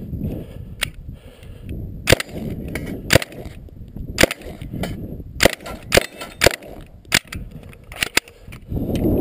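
9mm MkII Sten submachine gun firing single shots at an irregular pace, about nine in all, with a quick pair near the end.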